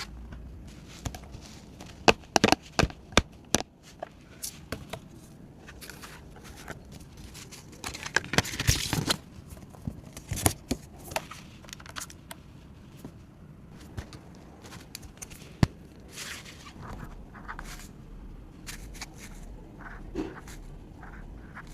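Banknotes and paper being handled: crinkling and rustling broken by sharp clicks and taps, with a quick run of clicks about two to three seconds in and a longer rustle about eight seconds in.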